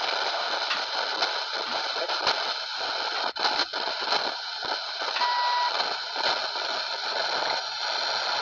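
Static from a small three-band portable radio's speaker, hiss with faint crackle, as the tuning knob is turned between stations. A short steady whistle sounds a little past halfway.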